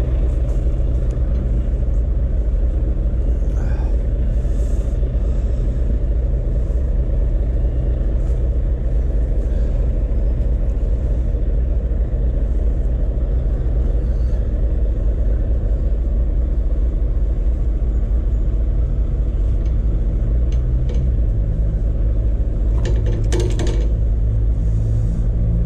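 Heavy goods lorry's diesel engine idling with a steady low rumble, with a few brief clicks near the end as a webbing load strap is handled.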